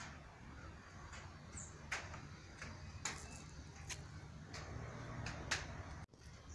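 Quiet background with a faint low hum and a few scattered light clicks, about one a second, plus a brief high squeak about one and a half seconds in.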